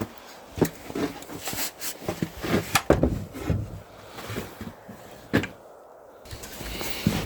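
Irregular knocks, thuds and scrapes of someone moving about and handling a door inside a small log cabin room.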